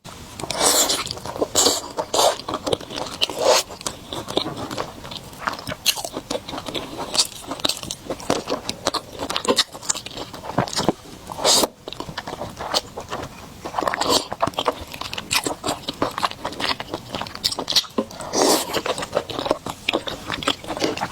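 Close-miked eating: steady, irregular biting and chewing with wet clicks and smacks of the mouth.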